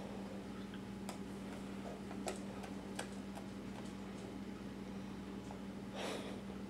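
Quiet room tone: a steady low hum with a few faint, sharp clicks, and a soft rustle about six seconds in.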